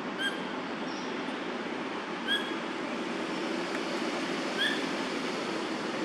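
Steady hum of city road traffic, with three short, slightly rising chirps about two seconds apart.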